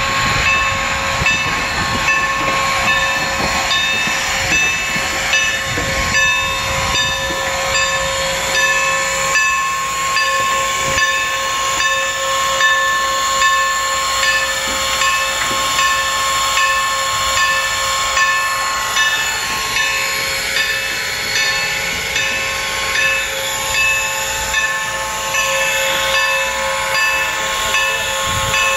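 Norfolk & Western 4-8-0 steam locomotive No. 475 standing still and hissing steam, with a steady whine and a rhythmic beat about once a second.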